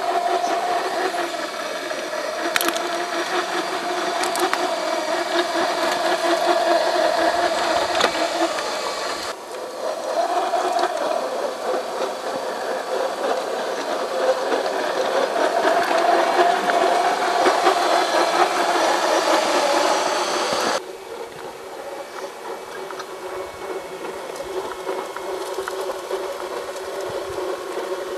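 Small electric motor and gear drivetrain of a 1:10 scale RC4WD Trail Finder 2 crawler whining as it crawls, the pitch wavering up and down with the throttle, over a rattling, crunching noise. The sound changes abruptly twice, about 9 seconds in and about 21 seconds in.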